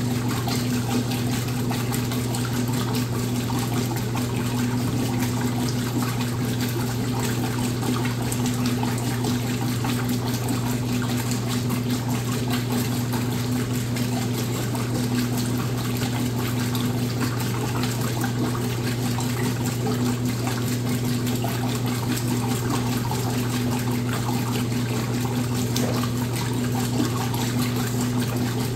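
Washing machine running with a steady motor hum under a continuous rush of water.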